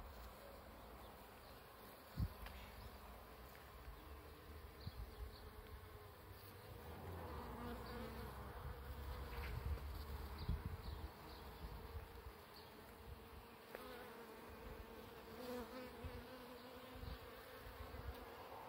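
Insects buzzing as they forage at a flowering bottlebrush (Callistemon) shrub: a faint steady hum that grows and fades as they fly about.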